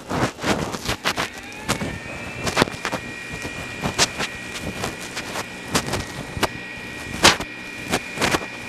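Elegoo Neptune 4 Max 3D printer running its input shaper resonance test: the print head is shaken by its motors, giving irregular sharp knocks and a whine that rises about a second and a half in and then holds as a steady high tone.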